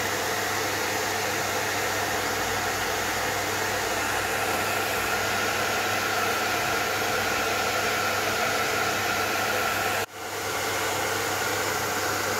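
Electric heat gun blowing hot air steadily, a constant fan hiss with a low motor hum, used to shrink a plastic bottle over a balsa plug. The sound breaks off for a moment about ten seconds in, then carries on.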